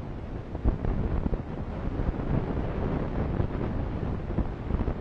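Wind buffeting the microphone: a steady, fluttering low rumble, with a sharper thump under a second in.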